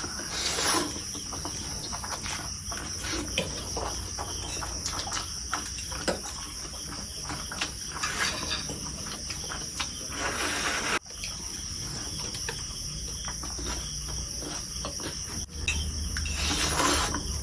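Crickets chirring steadily in a high, unbroken band, with close-up eating sounds over it: small clicks of chewing and a few short slurps of noodles.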